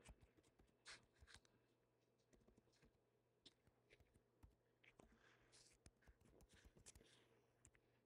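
Near silence with faint, irregular clicks of a computer keyboard being typed on.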